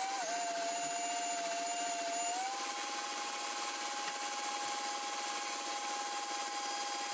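KitchenAid Classic Plus stand mixer running with its wire whisk, beating egg whites and sugar into a stiff meringue: a steady motor whine that steps up slightly in pitch about two seconds in.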